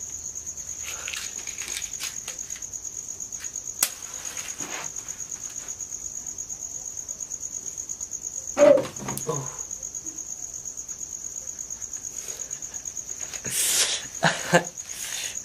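Crickets chirping in a steady, high, pulsing trill. A sharp click about four seconds in, a short loud noise about nine seconds in, and rustling near the end.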